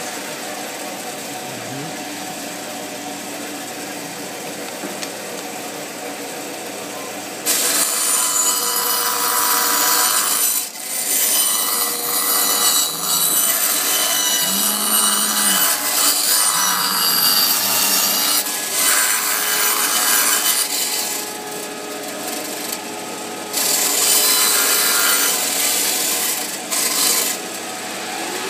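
Band saw running idle, then cutting a wooden blank from about a quarter of the way in as the blank is turned against the blade on a circle-cutting jig, sawing it into a round disc. The cutting noise eases for a couple of seconds about three-quarters through, then comes back loud before dropping off near the end.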